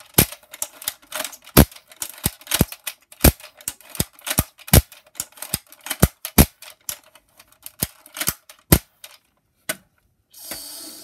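An orange plastic toy blaster being worked and fired over and over: a rapid, irregular run of sharp plastic clicks and snaps, about three a second, that stops about nine seconds in. A short hissing rush follows near the end.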